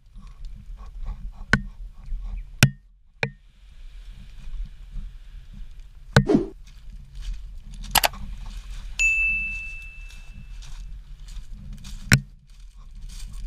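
Scuba gear clinking and knocking as divers walk with it: a handful of sharp knocks, some ringing briefly like metal, over a low steady rumble. About nine seconds in, a high steady beep lasts almost two seconds.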